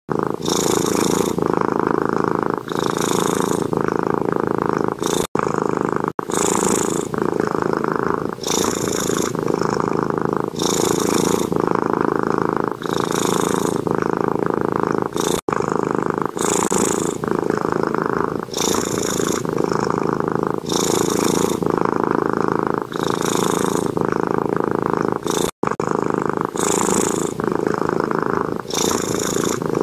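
A domestic cat purring steadily, in a regular in-and-out rhythm of about one cycle every two seconds. It breaks off for an instant a few times.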